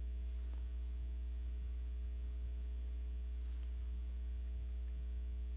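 Steady low electrical hum from the sound system, with a few faint clicks.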